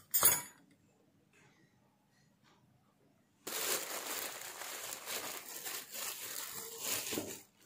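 A brief clink of steel beater attachments at the very start. About three and a half seconds in, a clear plastic bag around a hand mixer starts crinkling as the mixer is handled inside it, and this goes on for about four seconds.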